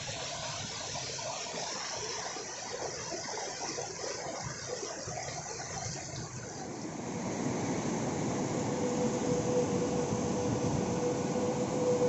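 Whitewater rushing over rocks in a fast stream at the head of a waterfall, a steady hiss of rapids that grows louder about seven seconds in. A faint steady hum joins it near the end.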